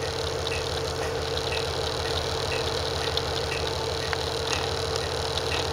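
The bus's Cummins ISB6.7 inline-six diesel idling, heard from inside the cabin as an even low throb with a steady hum above it. A faint tick repeats about once a second.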